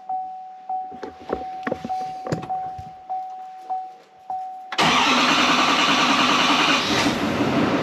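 The truck's chime pulses steadily with a few clicks and knocks. About five seconds in, the 2020 GMC 2500HD's 6.6-litre Duramax V8 turbo-diesel fires and runs loudly. This is the first start after a fuel filter change and priming, and it catches straight away.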